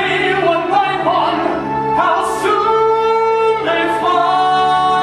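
A male voice sings a slow ballad with long held notes and vibrato over orchestral accompaniment.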